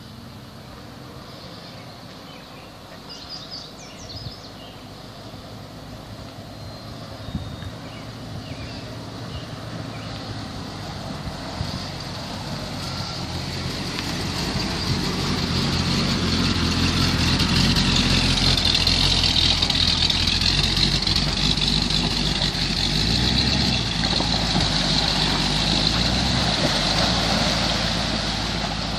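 A 1986 Jeep Grand Wagoneer's carbureted AMC 360 V8 running as the wagon drives up and past, quiet at first, growing steadily louder through the middle and easing off near the end.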